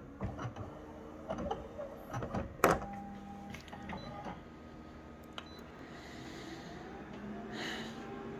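Office colour copier scanning and then starting to print: a string of mechanical clicks and knocks with a sharp click just under three seconds in, over a steady motor hum. The hum rises again near the end as the print engine starts up.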